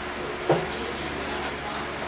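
Steady classroom room noise, a low hum and hiss, with one short sharp sound about half a second in.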